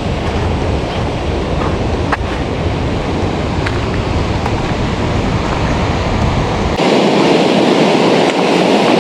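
Loud, steady rush of the Tuolumne River's rapids and cascades, heavy with low rumble at first; about seven seconds in it changes abruptly to a brighter, hissier rush of water.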